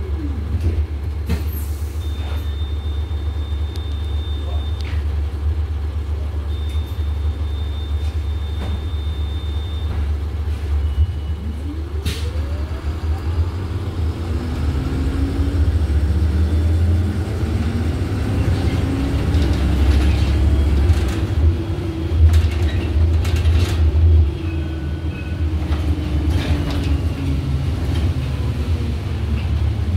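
Iveco Urbanway city bus heard from inside the passenger saloon while driving: a steady low rumble of engine and road, with the engine pitch climbing as the bus accelerates and easing back down later, and occasional knocks and rattles from the bodywork. A faint high steady tone sounds twice in the first few seconds.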